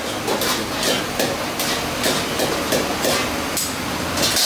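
Metal ladles knocking and scraping against steel karahi woks in irregular clanks, over a steady hiss of frying on gas burners.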